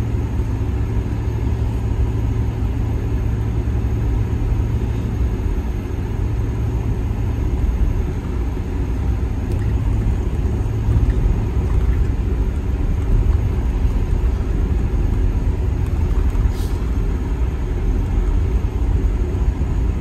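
Car driving, heard from inside the cabin: a steady low rumble of engine and tyres rolling over a snow-covered road.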